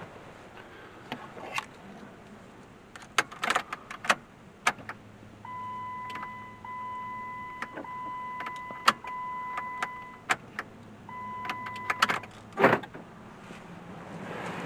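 A steady electronic warning tone from the car sounds in long stretches with short breaks, from about five seconds in and again briefly near twelve seconds. Sharp clicks and knocks of handling come around it.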